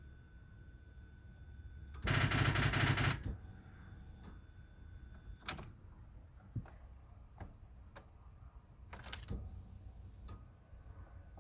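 Starter of a 1999 VW Beetle 2.0 engaging in a rapid clattering burst of about a second, without the engine catching: a no-start with a battery the owner has found fine. Scattered clicks follow, then a second, shorter burst near the end.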